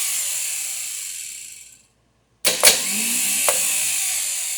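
Rebuilt starter motor for a 1953 Chevrolet 235 six, spinning free with its drive gear thrown out. One run winds down to a stop about two seconds in. About half a second later the starter is switched on again with sharp clicks, whirs at speed, then begins to wind down near the end.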